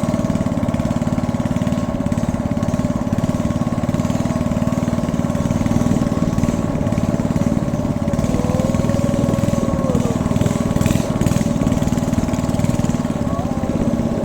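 Small engine of a katinting motor canoe running steadily at an even pace, with a fast regular pulsing.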